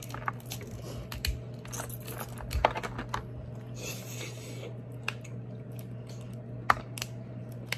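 King crab leg shells being cracked, picked apart and scraped with a knife: scattered sharp cracks and clicks, the loudest near the end, with a short crinkly rustle midway, over a steady low hum.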